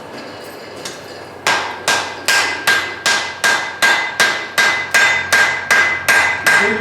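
Blacksmith's hand hammer striking hot steel on an anvil in a steady run of about fourteen blows, roughly two and a half a second, starting about a second and a half in, each blow followed by a ringing tone. A forge-welded bundle of angle iron and bar stock is being drawn down to a taper and rotated between blows.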